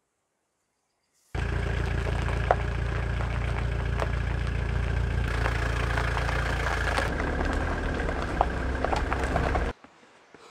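Mitsubishi Delica van's engine running steadily. It starts abruptly about a second in and cuts off sharply near the end.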